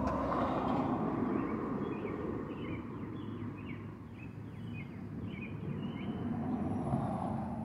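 Outdoor ambience: a steady hum of distant traffic, swelling briefly at the start and again near the end, with a small bird giving a series of short chirps, about two a second, through the middle.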